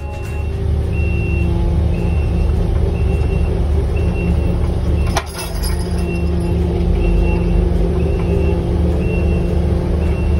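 Tow truck's engine running steadily while its backup alarm beeps about once every three-quarters of a second, a sign that the truck is reversing.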